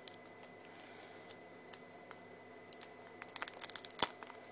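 Foil booster pack wrappers being handled: a few faint ticks, then a burst of crinkling about three seconds in, with one sharp click near the end.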